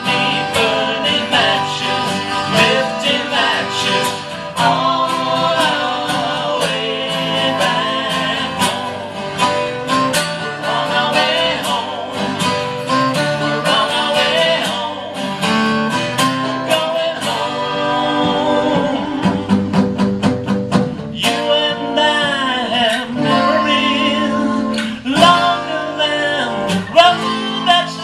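Live acoustic guitar strummed with singing, a country or bluegrass-style song.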